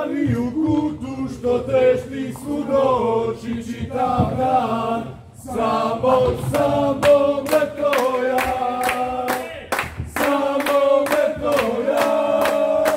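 A group of supporters singing a chant together, held notes moving from phrase to phrase. From about halfway through, rhythmic hand claps join the singing.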